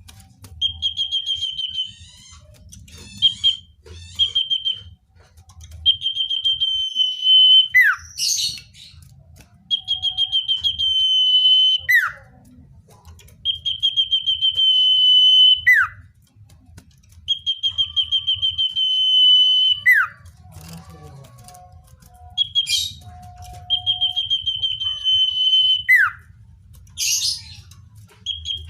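Common iora singing: a long, steady, high whistled note followed by a sharp falling slur, repeated about every four seconds, seven times.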